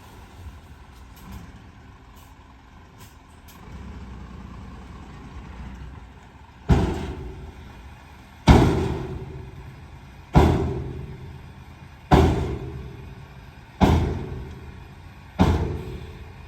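Heavy earthmoving machinery engine running. From about two-fifths of the way in, six loud bangs come about every 1.7 seconds, each ringing away over about a second.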